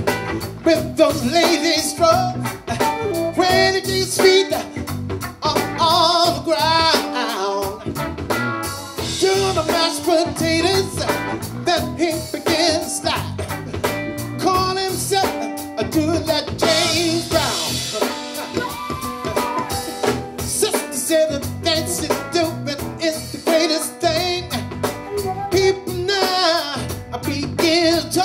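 Live funk band playing an instrumental passage: drum kit, electric bass and electric guitar, with a melodic lead line over the groove.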